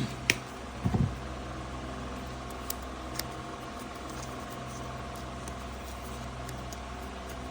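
Steady low background hum with a sharp click just after the start, a low knock about a second in, and two faint clicks a little later, typical of wires and parts being handled on a workbench.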